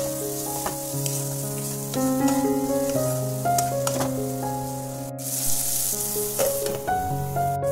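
Chopped vegetables sizzling in oil in a kadai, stirred with a wooden spatula that scrapes and knocks against the pan, with a glass lid going on near the end. Background music with a simple melody plays throughout.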